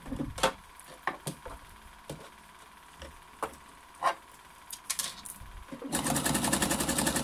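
Scattered light clicks and taps as fabric is handled at a computerized sewing machine. About six seconds in, the machine starts and runs at a steady, even stitching rhythm, sewing a wide zigzag stitch.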